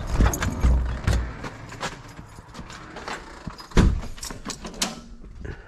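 Irregular knocks, clicks and rustling from a handheld phone being carried through a doorway, with a low rumble in the first second and one heavy thump nearly four seconds in.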